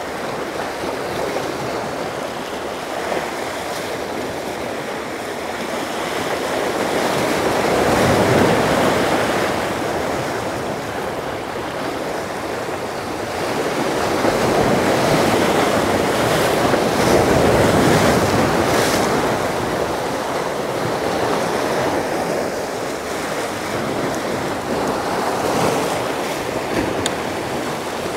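Sea waves washing against a jetty, a steady rush of surf that swells louder a couple of times.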